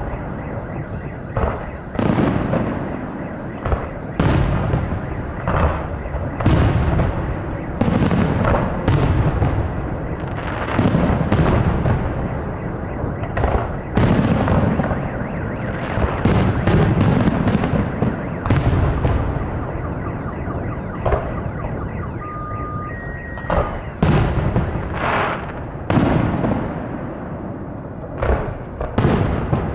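Aerial firework shells of a display bursting in quick succession, a sharp bang every second or so, each trailing into a low rolling rumble. A few seconds past the middle the bangs thin out to a steady rumble before they pick up again.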